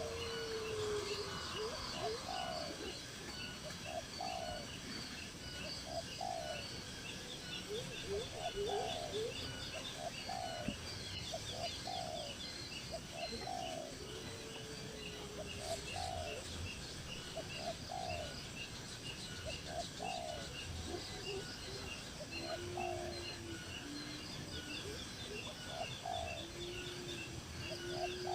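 Several birds calling together. A short low call repeats about once a second, with a few longer low whistled notes, over steady high chirping and trilling.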